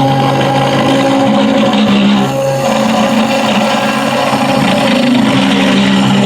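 Home-built MDF CNC machine running, its stepper motors whining at several pitches that shift every second or two as the axes change speed.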